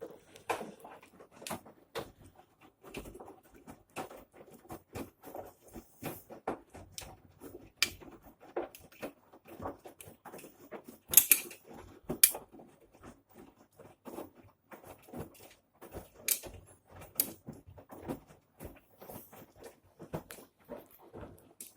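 Old washing machine clicking and tapping irregularly, with two sharper knocks about eleven and twelve seconds in.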